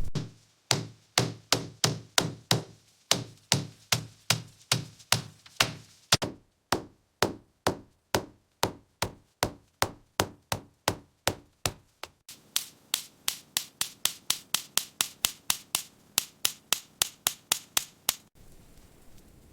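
A long series of sharp, evenly spaced hand-tool strikes, like hammering or chopping, about three a second in two runs. A third run follows that is quicker, about four a second, and softer, and it stops abruptly near the end.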